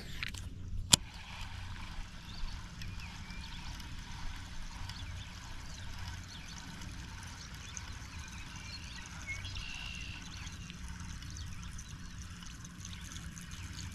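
Baitcasting reel after a cast: a sharp click about a second in, then a steady faint whirr as the topwater lure is wound back in, with faint bird chirps.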